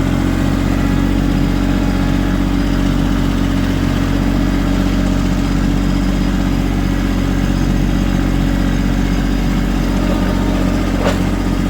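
Small Kubota tractor's diesel engine running steadily at a constant speed, with a small click near the end.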